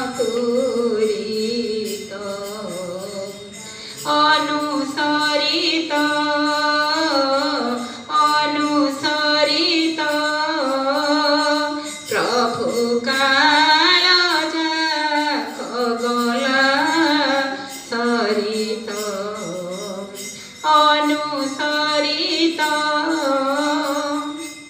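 Music of an Odia devotional song: a melody that bends in pitch, in phrases of a couple of seconds, over light jingling percussion.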